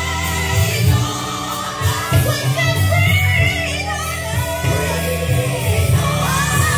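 Christian worship song playing: singing over a band with a heavy, sustained bass line.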